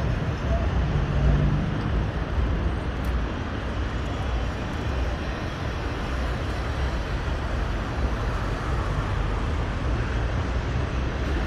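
Steady urban road traffic: cars passing with a continuous low rumble of engines and tyre noise, with a brief engine hum about a second in.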